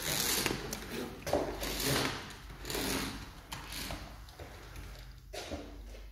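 Footsteps walking across a hard floor, a string of sharp steps.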